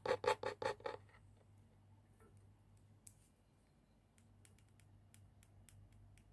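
Fingertips tapping quickly on a tabletop, about five taps in the first second, followed by scattered faint clicks.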